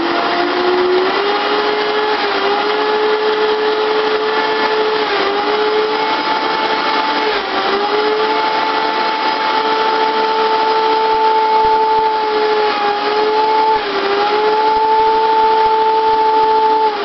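High-powered countertop blender running at high speed, pulverising chia seeds in hot liquid into a smooth paste. Its motor whine climbs to speed in the first couple of seconds, holds steady with a few brief dips in pitch, and winds down right at the end.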